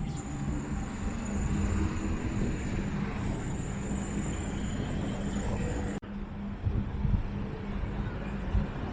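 Road traffic: vehicles running past with a steady engine hum, briefly cut off about six seconds in.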